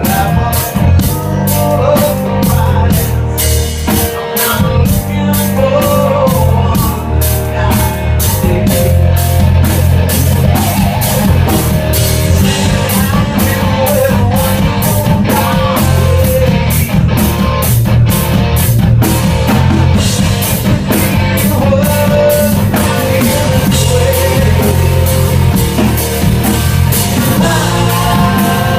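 Rock band playing an instrumental passage live, with drum kit, bass and electric guitar; the cymbals and drums keep a steady beat.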